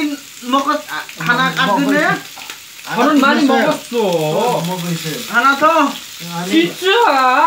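Men's voices talking over one another, with a steady sizzle of food frying underneath.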